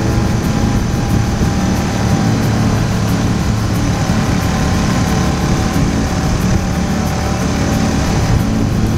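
Motorcycle riding at a steady pace: the engine runs evenly under a constant rush of wind noise, with no change in speed.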